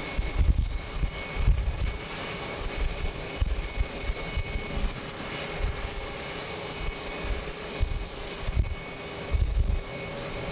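Boeing 737 jet airliner's engines at takeoff thrust, a steady distant rumble with a thin whining tone. Gusts of wind buffet the microphone throughout, the loudest part of the sound.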